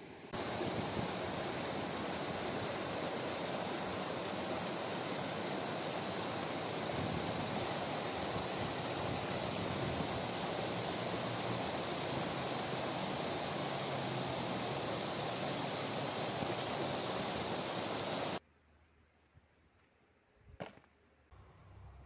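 Fast, muddy river rapids rushing over rocks, a loud steady roar of water. It cuts off suddenly near the end, leaving quiet with a single knock.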